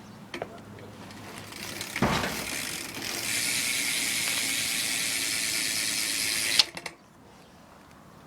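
Vice rear hub of a BMX bike ratcheting as the wheel spins, building into a fast, steady ratcheting buzz for a few seconds, then cutting off abruptly with a sharp click.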